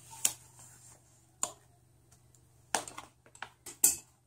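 Scissors snipping through the paper label band around a rolled yoga mat: a sharp click near the start, another about a second and a half in, then a quick run of clicks and paper rustle near the end as the label comes free.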